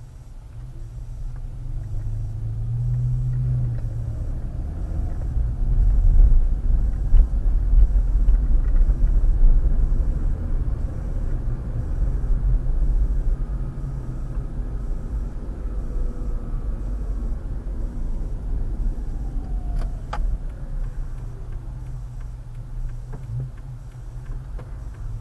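Car engine and road rumble heard from inside the cabin as the car pulls away from a stop, heaviest about six to ten seconds in, then easing as it slows. A single sharp click comes near the end.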